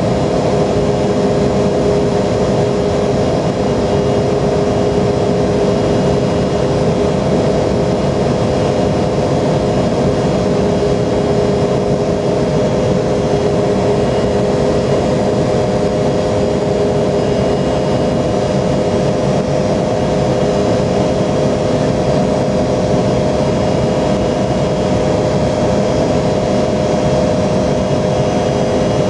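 Embraer 170's twin GE CF34 turbofan engines running at steady power: a constant rushing noise with a few steady humming tones beneath it, unchanging throughout.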